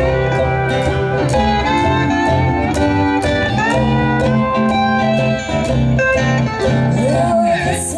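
Country string band playing an instrumental break: a steel guitar lead with sliding notes over plucked upright bass and mandolin.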